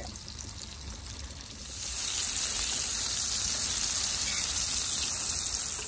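Lemon slices sizzling in hot olive oil and butter in a Fry-Bake pan over a bed of coals. The steady sizzle grows louder about two seconds in.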